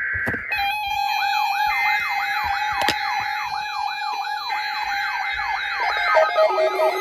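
Several electronic siren and alarm tones layered together: a fast yelping sweep repeating about three times a second over steady high beeping tones, with lower pulsing tones piling in near the end and a sharp click about three seconds in.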